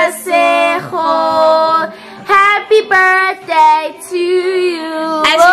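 Music: a song led by a high female singing voice, with gliding sung notes.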